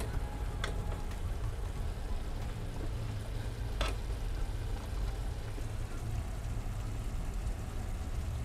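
Orecchiette and broccoli rabe sizzling steadily in a skillet with a little starchy pasta water, with a couple of light clicks.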